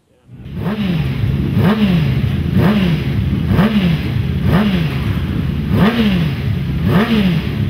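Racing motorcycle engine revved over and over, its pitch climbing sharply and dropping back about once a second, over a steady idle.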